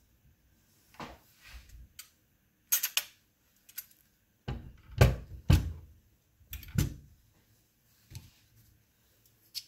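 Knocks and clicks of a Winchester 1886 lever-action rifle's steel action being handled and turned over in a wooden cradle. There are several separate clacks, with the heaviest knocks about halfway through.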